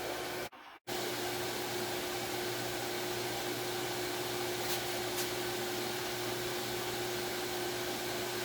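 Surface grinder running with its wheel spinning: a steady noise with one constant whine. The sound drops out briefly about half a second in, and two faint ticks come a little before the five-second mark.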